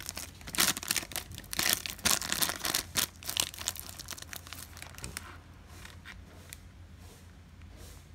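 Opened foil-plastic blind bag being handled and squeezed in the hand, crinkling densely for about five seconds, then only a few faint crinkles.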